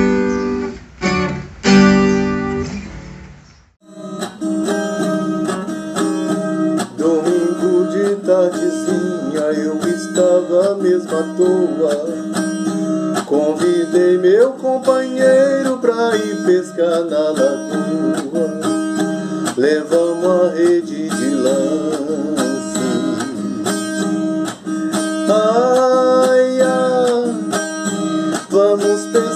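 Viola caipira playing a few final chords, which die away about four seconds in. After a short gap, a man sings to an acoustic guitar.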